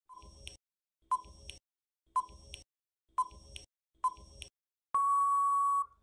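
Quiz countdown timer: five short beeps about a second apart, then one long steady beep near the end signalling that time is up.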